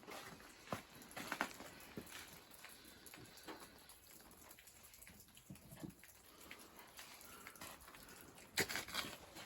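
Irregular footsteps crunching on snow, with a quicker, louder run of steps near the end.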